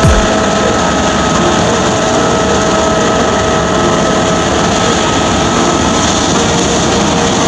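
Claas Tucano 470 combine harvester running steadily under load, a constant machine noise with a steady whine running through it.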